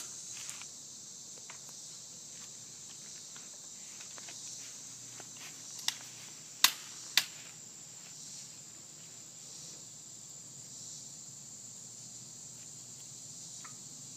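Steady high chirring of insects, with three sharp clicks close together about halfway through.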